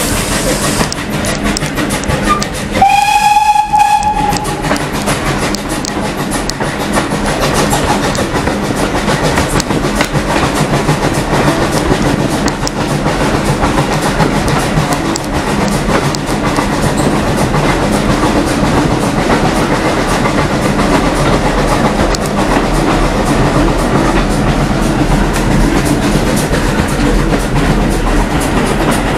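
A train running along the line, heard from inside a carriage at an open window: a steady rumble with the clickety-clack of wheels over rail joints. About three seconds in, a single whistle blast of about a second and a half.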